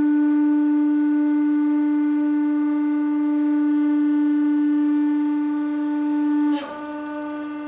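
A loud, steady pitched hum with a row of evenly spaced overtones. About six and a half seconds in there is a click, and the hum carries on more quietly.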